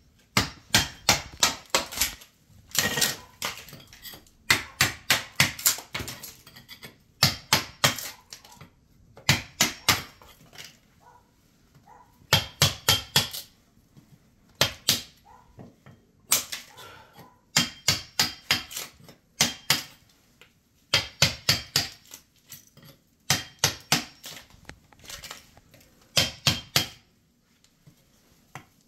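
Claw hammer striking a chisel to chip away the edge of rotten wood flooring, in quick runs of several sharp strikes with short pauses between.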